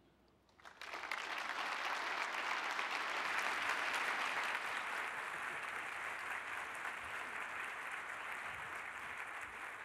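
Audience applauding, starting about a second in, building to a full steady clapping and then slowly easing off without stopping.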